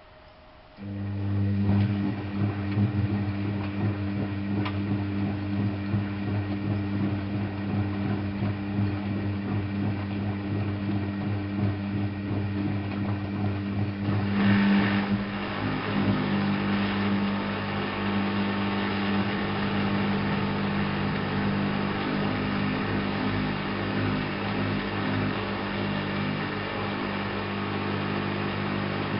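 Washing machine drain pump switching on abruptly about a second in and running with a steady mains hum, a pump the owner calls somewhat loud, with water noise over it and a brief rougher gurgle about halfway through.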